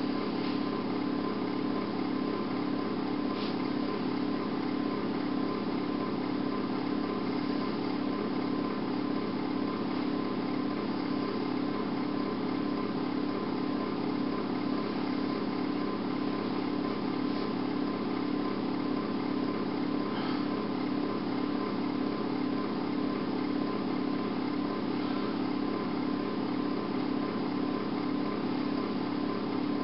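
A steady, unchanging mechanical hum.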